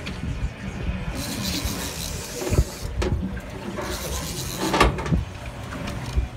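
Wind buffeting the microphone on an open boat: a steady, uneven low rumble with hiss. There are a few short knocks about two and a half seconds in and again near five seconds.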